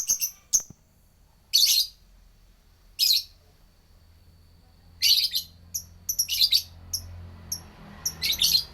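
A small bird, called a lebet bird, giving short bursts of high, rapid chirping every one to two seconds, with single short chips between the bursts.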